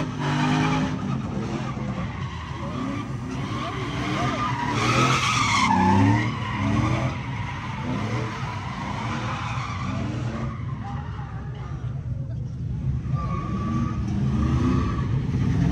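Pickup truck engines revving up and down while spinning their rear tyres in burnouts and donuts, the tyres screeching and skidding on the pavement throughout.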